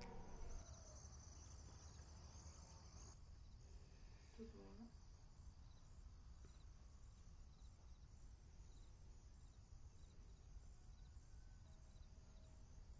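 Near silence: low steady room tone, with a faint high chirring for the first three seconds and one short, soft pitched sound about four and a half seconds in.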